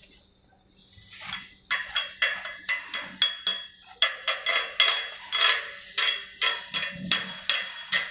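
Hammer strikes on a welded steel plate, about four blows a second with a short break, each one ringing: knocking slag off the overhead weld bead.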